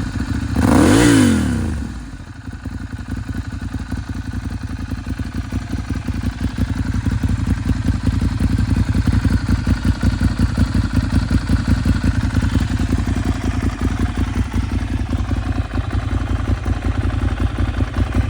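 Ducati Monster 796's air-cooled L-twin engine through an aftermarket La Bellezza all-titanium silencer: one quick rev about a second in, rising and falling, then settling to a steady idle with a rapid even beat.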